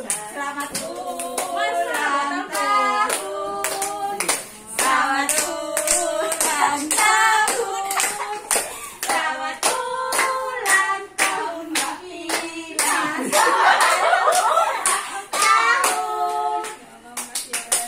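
A small group of women singing a birthday song together while clapping their hands in time.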